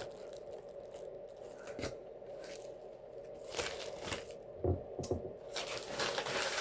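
Crinkling, tearing and crackling of a burrito's takeout wrapping as it is handled, in scattered short bursts over a faint steady hum.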